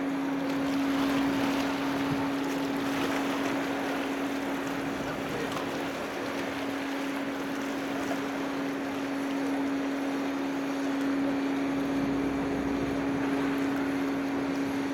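Car ferry Isemaru's machinery running steadily at the berth: an unbroken hum on one pitch over an even wash of engine and wind noise.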